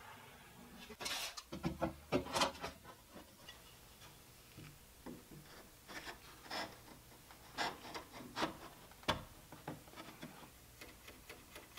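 Wooden trim pieces and bar clamps being handled against a plywood cabinet box: light wooden knocks, taps and rubbing, with a cluster of louder knocks in the first few seconds and more scattered taps later.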